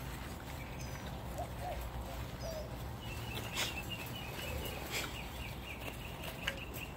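Olde English Bulldogge puppies playing and scuffling, with a few short squeaks early on and scattered light clicks. From about three seconds in, a bird chatters in quick, high chirps for about three seconds.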